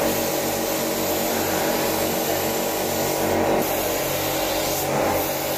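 Compressed-air paint spray gun spraying body paint, a steady hiss over the even hum of the air compressor running behind it.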